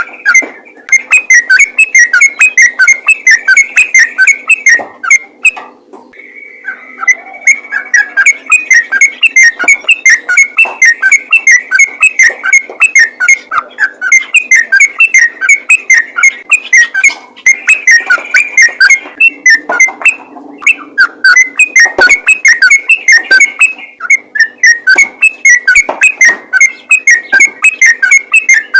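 Yellow-vented bulbul singing a loud, rapid, nearly unbroken string of chattering notes, breaking off briefly about six seconds in and again around twenty seconds in.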